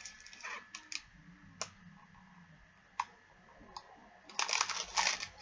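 A small cardboard candy package handled in the hands: a few light, scattered clicks, then a short crinkling rustle near the end.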